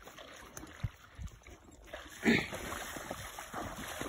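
A pony wading into a pond: a few soft thumps, then steady splashing of water from a little past halfway, with a brief louder sound as the splashing starts.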